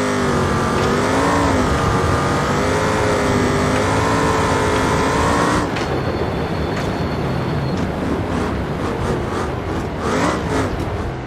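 Car engine running with its pitch swinging up and down as it is revved. About six seconds in it cuts abruptly to a second, rougher engine sound, which gives a brief rev up and back down near the end.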